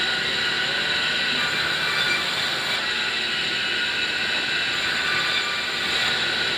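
Large vertical band saw sawing through a log. It makes a steady, loud, high noise with no break.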